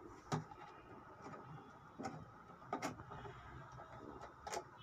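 Hard plastic parts being handled: a few sharp separate clicks and knocks as a blue-rimmed plastic strainer is lifted out of a knapsack mist duster's plastic tank.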